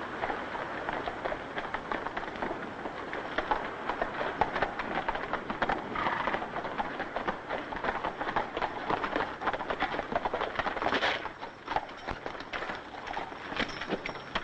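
Horses galloping: a dense, continuous patter of hoofbeats.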